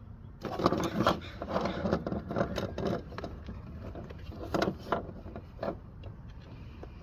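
Jumper cables being handled and their plug pushed into a portable jump starter's cable port: irregular clicks, knocks and clatter of the plastic plug and metal clamps.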